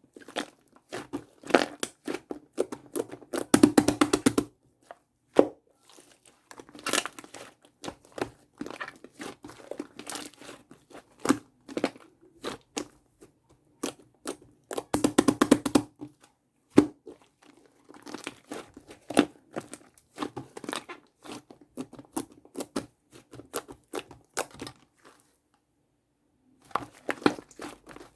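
Hands squeezing and stretching shaving-foam slime, a dense run of small sticky crackles and pops. There are two spells of quicker, louder crackling, about four and fifteen seconds in, and a short pause a couple of seconds before the end.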